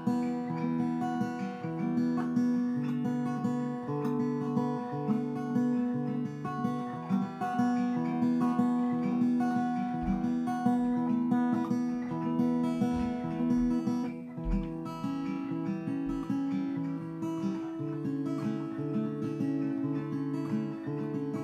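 Acoustic guitar strummed slowly, one chord ringing into the next, with a few low bumps about halfway through.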